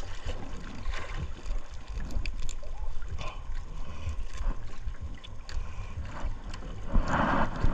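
Wet gloved hands working a fish free of a nylon fishing net: crinkling and small clicks of the net and gloves over a steady low rumble. A louder burst of noise comes about seven seconds in.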